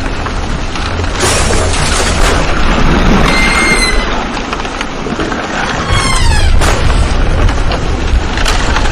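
Sound effect of the Titanic's hull colliding with and grinding against an iceberg: a deep, continuous rumble with crashes about a second in, and again near the end. A high metallic squeal comes around three seconds in, and a falling screech about six seconds in.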